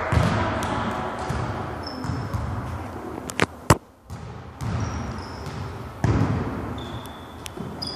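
Volleyball rally in a gym: sharp smacks of the ball being hit, two close together about three and a half seconds in, with short high sneaker squeaks on the court floor and echoing hall noise.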